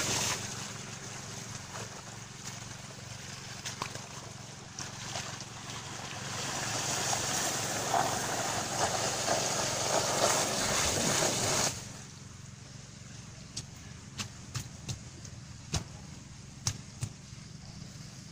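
Water gushing out of a PVC pipe fed by a diesel water pump, a steady rushing that cuts off suddenly about two-thirds of the way through. A steady low hum from the pump engine runs underneath, and a few sharp clicks follow near the end.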